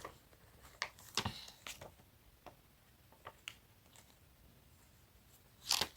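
Scattered light clicks and taps from over-ear headphones being handled and their buttons examined, with a short soft rustle near the end.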